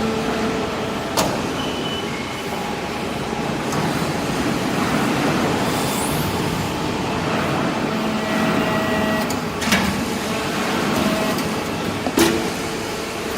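Hydraulic vertical baler running with a steady mechanical drone, with a few sharp metallic knocks about a second in, near ten seconds and near twelve seconds.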